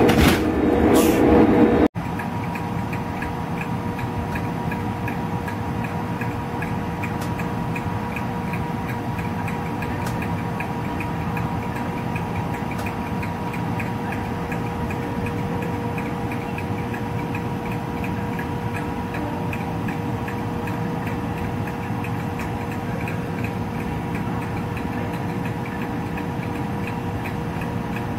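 Class 92 electric locomotive standing at the head of a sleeper train, its equipment giving a steady hum with a constant mid-pitched tone and a quick, regular light ticking. It opens with about two seconds of louder noise that cuts off abruptly.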